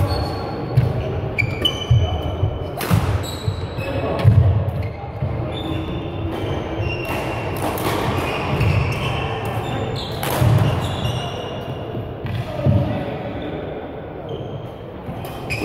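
Badminton doubles rally on a sports-hall court: rackets striking the shuttlecock with sharp cracks, shoes squeaking and feet thudding on the court floor, echoing in the large hall.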